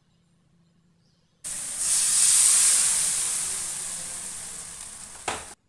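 Water hitting hot oil and masala paste in a wok, hissing and sizzling loudly with steam. It starts suddenly about one and a half seconds in, then slowly dies down, with a single knock just before it cuts off.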